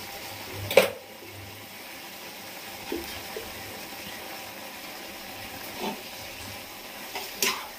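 Tomatoes and spices simmering and sizzling in a kadai on a gas stove, a steady bubbling hiss. A spoon knocks against the pan sharply about a second in and a few more times as the mixture is stirred, once more loudly near the end.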